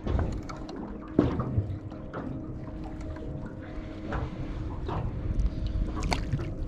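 Water splashing and dripping, with scattered short knocks and a steady low hum underneath.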